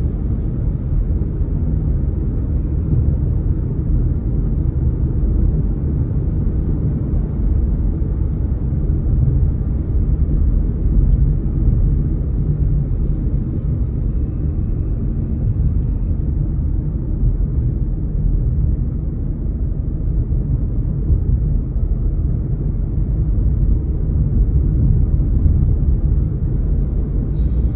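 Steady low rumble of tyre and engine noise inside the cabin of a car cruising along a paved road.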